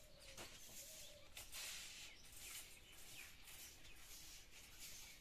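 Faint, repeated swishing strokes of a soft grass broom sweeping a concrete floor.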